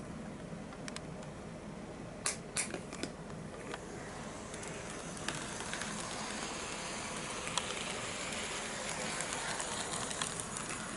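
HO-scale KATO EF81 model electric locomotive running on sectional track: a few sharp clicks about two to three seconds in, then the motor's whir and the wheels ticking over the rail joints and turnout, growing a little louder as it comes closer.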